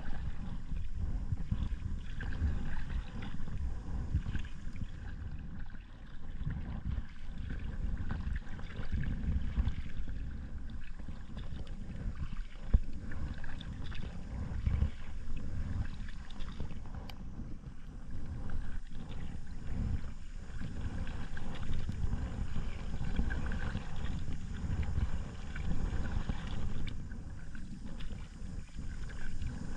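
Paddling a packraft: water swishing and lapping with the paddle strokes, under a steady low rumble on the microphone.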